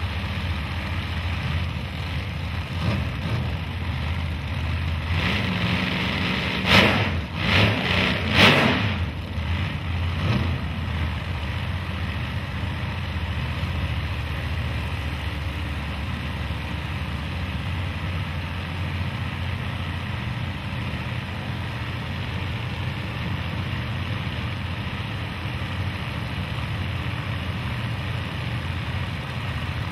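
Drag race car engines idling with a steady low rumble, with three sharp throttle revs about seven to nine seconds in.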